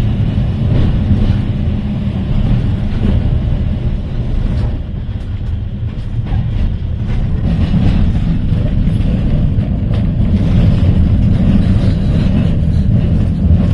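Electric tram running along its line, heard from inside the car: a steady low rumble of wheels and running gear, with occasional light knocks.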